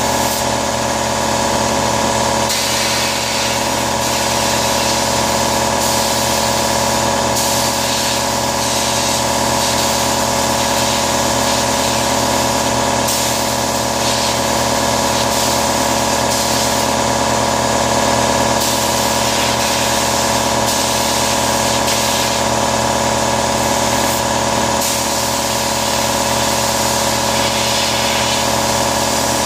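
Sandblast cabinet in use: a steady hiss of compressed air and sand over the continuous running of the air compressor that feeds it, the hiss changing every few seconds as the blast gun is worked.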